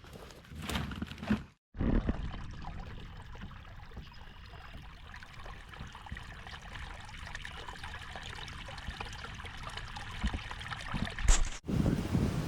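Water trickling and running steadily, starting abruptly about two seconds in and cutting off shortly before the end.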